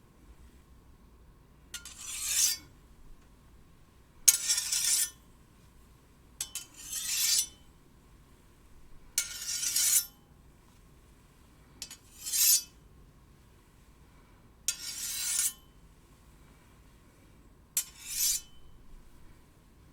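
One steel blade drawn along another, seven times at an even pace: each stroke a hissing metal scrape that swells and then cuts off, with a faint ringing note underneath.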